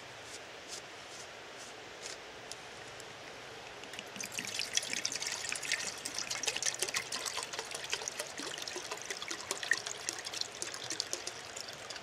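Water pouring from a plastic canteen into a metal canteen cup, starting about four seconds in with a steady splashing trickle. Before it there are a few faint clicks of handling.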